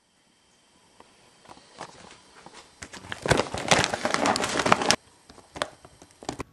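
Rustling and crinkling of a Purina Beneful dog food bag with a plastic-lined top as it is handled and opened. A run of crackles builds from about a second in, grows densest between about three and five seconds, then stops abruptly, leaving a few scattered clicks.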